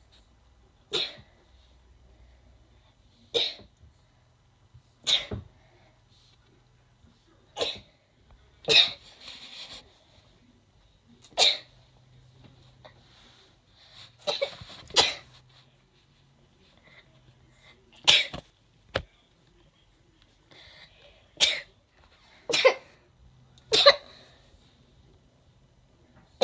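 A person sneezing over and over in an uncontrollable sneezing fit: about thirteen sharp, loud sneezes, one every one to three seconds, some coming in quick pairs.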